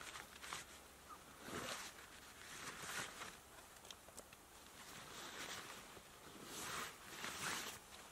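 A backpack and the gear in it being rummaged through by hand: fabric and nylon rustling in a few short bursts, the loudest near the end.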